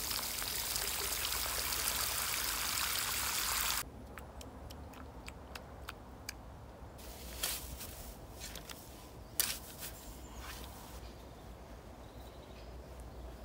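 Water pouring steadily onto soil, watering in a freshly planted tree, stopping abruptly about four seconds in. A quieter stretch with a few sharp knocks follows.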